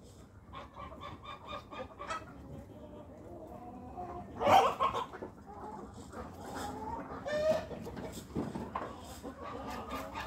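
Chickens clucking and calling in a mixed poultry flock: many short, scattered calls, with one loud call about four and a half seconds in.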